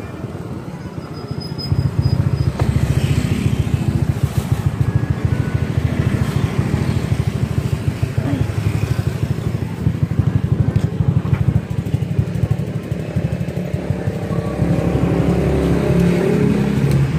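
Motorcycle engine running close by, a steady rapid pulsing that gets louder about two seconds in.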